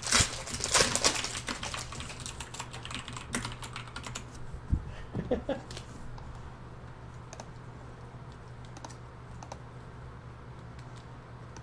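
Typing on a computer keyboard: a quick run of keystrokes for the first few seconds, then scattered single key presses, over a steady low hum.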